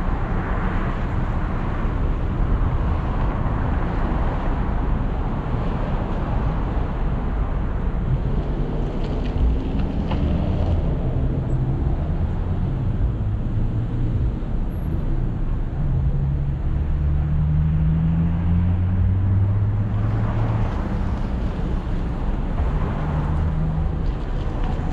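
Car driving on city streets: steady road and tyre noise, with an engine hum that rises in pitch a few times through the middle, as the vehicle accelerates.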